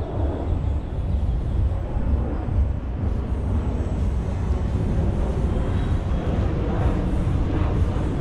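Outdoor city street ambience: a steady low rumble with no distinct events.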